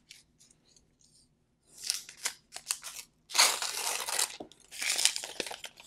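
Paper wrap being peeled and torn off a new Apple 67 W USB-C power adapter: a few short papery rips, then a longer tearing rustle about three and a half seconds in, and more rustling near the end.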